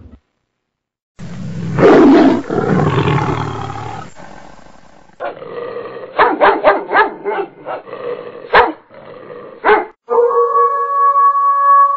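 A big cat's loud growling roar starts about a second in. Then comes a fast run of sharp dog yelps and squeals, and near the end a long, steady wailing cry that falls slightly in pitch.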